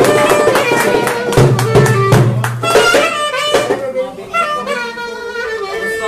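Live Turkish folk dance music: a clarinet playing a melody over quick darbuka drumming, with a bowed fiddle. The drumming thins out about halfway through, leaving the clarinet's held, ornamented notes.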